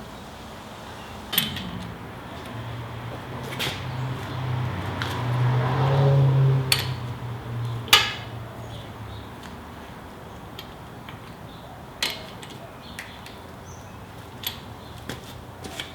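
Scattered metallic clinks and knocks of tools and parts being handled, a single sharp knock about eight seconds in being the loudest. A low hum rises in the first half, peaks about six seconds in and fades away by about nine seconds.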